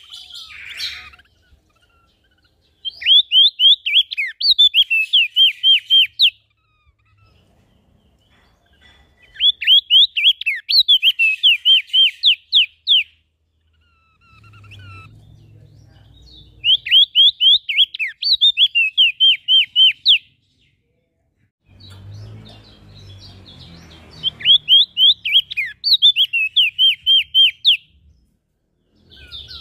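A small songbird singing in four bursts of rapid, sharp, high chirps, each burst about three seconds long, with short quiet pauses between them. Faint low rumbling can be heard in some of the pauses.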